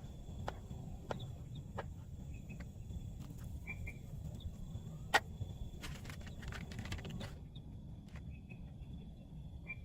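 Scattered raindrops and drips tapping irregularly, with one sharper drop about five seconds in and a quick run of taps a second later, over a low steady rumble. A steady high insect trill and a few short chirps sound through it.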